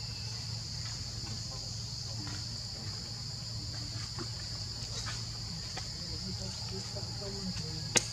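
Steady, shrill chorus of insects, a continuous high drone, over a low steady hum, with faint scattered ticks and one sharp click near the end.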